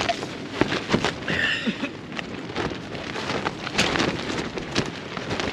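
Tent fabric flapping and crackling in gusty wind: a dense, irregular run of sharp snaps and rustles over a steady rush of wind.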